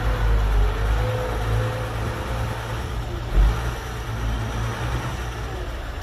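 Diesel engine of a Hyundai dump truck running steadily, driving the hydraulic hoist as the bed tips up and the load of soil slides out. A brief low thump about halfway through.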